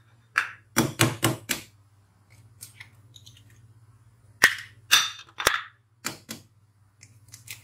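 Eggs being knocked against the rim of an earthenware dish to crack their shells: a quick run of about five sharp knocks, then after a pause another cluster of sharp knocks about four and a half seconds in.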